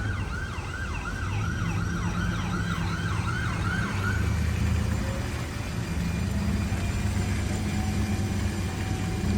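Emergency vehicle siren in a fast yelp, rising and falling about three times a second, cutting off about four seconds in. Under it, a steady low vehicle engine and traffic rumble.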